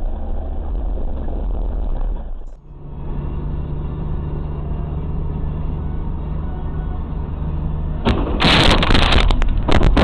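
Car cabin noise recorded by dashcams: low road and engine rumble, then after a cut a steady low engine hum. Near the end a loud, harsh noise burst lasts about a second and a half and flares again briefly.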